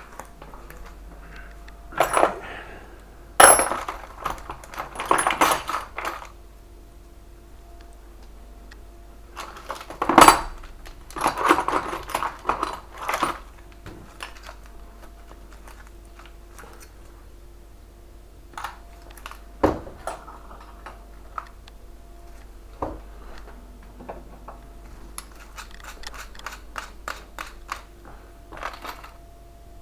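Metal tools and lock hardware clinking and clattering during lock-changing work, in two busy bursts early and around the middle, then scattered single clicks.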